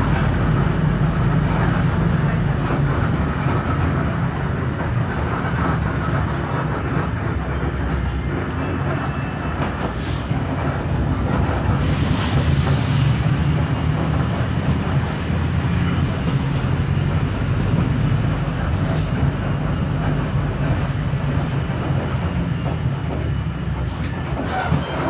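Mercedes-Benz OF 1721L city bus diesel engine running with a steady low drone, mixed with body rattle and road noise. A short hiss about halfway through.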